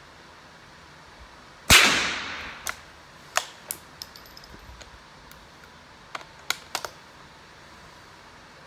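A single rifle shot fired about two seconds in, with a short echo trailing off. It is followed by a run of metallic clicks and clacks as the bolt is worked to eject the spent case and chamber the next round.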